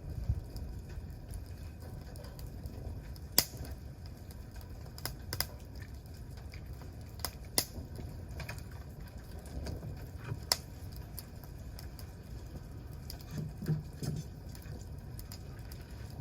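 Wood campfire crackling: irregular sharp pops and snaps every second or so, over a low steady rumble.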